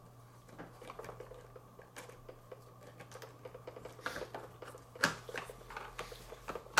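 Small plastic clicks and taps from handling a toy fire truck as a plastic fireman figure is pushed into its cab, with a couple of sharper clicks about five seconds in and at the end.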